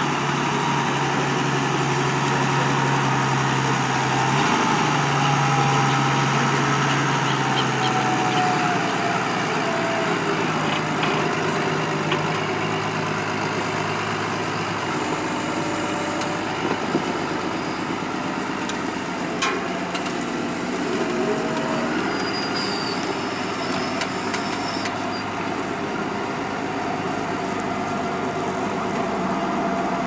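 New Holland T6.180 tractor's six-cylinder diesel engine running under load while ploughing. Its note falls a few seconds in and rises again about two-thirds of the way through.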